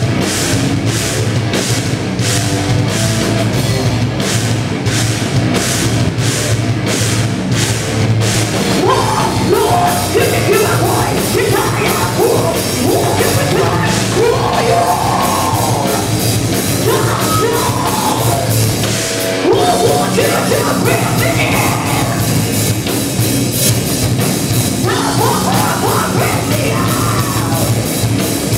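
Heavy metal band playing live: distorted guitars and drums, with steady drum hits about twice a second at first. A female lead vocal comes in about a third of the way through and returns in phrases near the end.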